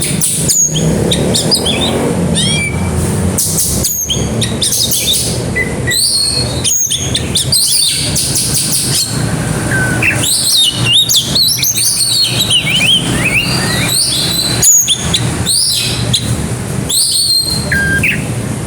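Oriental magpie-robin singing a rapid, varied song of short chirps, whistles and sliding notes in the fast 'grabakan' style, working in phrases mimicked from other birds. A steady low hum runs underneath.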